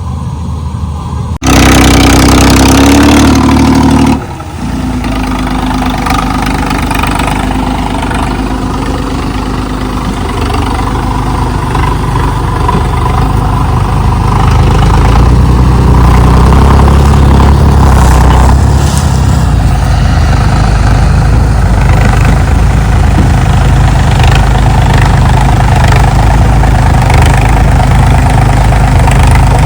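HMT tractor's diesel engine running steadily, with a sudden much louder stretch of about three seconds near the start, then growing louder about fourteen seconds in and staying loud.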